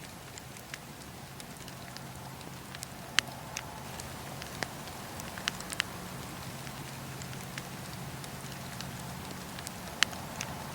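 Wood fire burning in a fireplace: a steady low rush with scattered sharp crackles and pops, the loudest about three seconds in and again near the end.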